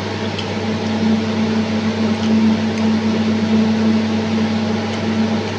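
Steady whirring hum of a running fan or similar motor, with a constant low drone and an even hiss, and a few faint ticks.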